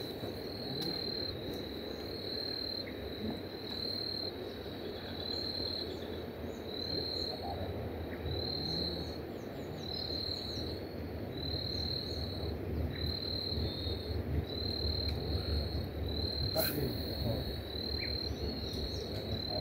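An insect chirping in short, evenly spaced high pulses, about three every two seconds, over a low steady background rumble. A single sharp click sounds near the end.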